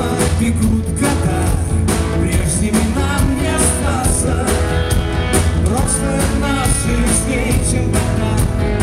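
Rock band playing live: electric guitar, bass and keyboards over a steady drum beat, with a singing voice.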